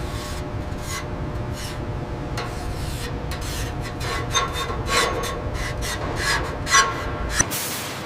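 Industrial metalwork: repeated rasping scrapes and short ringing metallic strikes over a steady low rumble, growing busier and louder in the second half.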